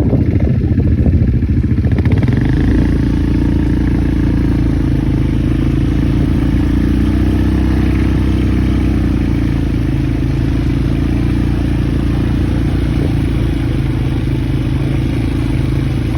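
Quad bike engine running steadily and loud, close to the microphone.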